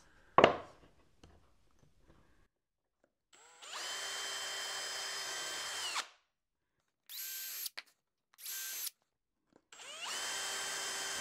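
Milwaukee cordless drill boring pilot holes in wood. It spins up to a steady whine for a couple of seconds and stops, gives two short bursts, then runs steadily again near the end. A single knock sounds just at the start.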